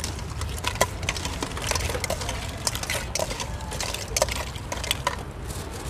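Metal spoon clinking and scraping against a stainless steel mixing bowl as raw crab pieces are tossed in a wet dressing, with irregular clinks throughout. A steady low rumble sits underneath.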